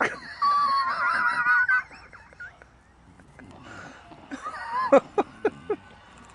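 Bulldog whining in high, wavering tones for nearly two seconds, then a quick run of shorter falling whines with small clicks a few seconds later.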